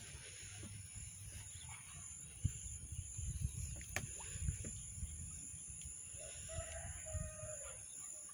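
Outdoor ambience from a hand-held phone: low, uneven rumbling of wind on the microphone with handling knocks and a few clicks. About six seconds in there is a short, faint pitched call from a distant animal.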